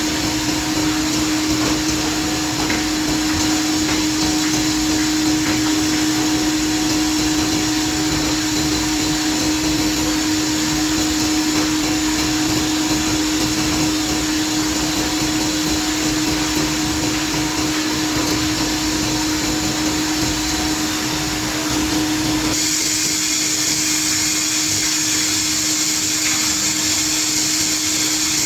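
Woodmaster WM-3A CNC woodworking machine running steadily, a constant mechanical whir with a steady hum. A little over 22 seconds in, the sound shifts to a brighter, higher hiss with less low end.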